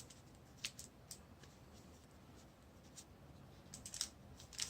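Faint handling of a plastic action figure and its small cloth jacket while the jacket is worked onto the figure: a few scattered light ticks and rustles, with a short cluster near the end.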